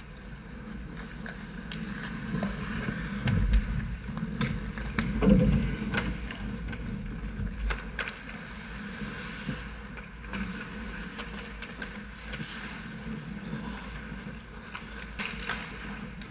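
Ice hockey play on an indoor rink: skate blades scraping the ice and sticks and puck clacking in scattered sharp knocks, over a steady low rumble. A dull thump about five seconds in is the loudest moment.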